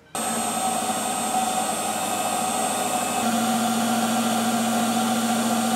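Emco Unimat SL mini lathe running steadily, its motor giving a constant hum and whine that cuts in abruptly; the tone shifts slightly about three seconds in.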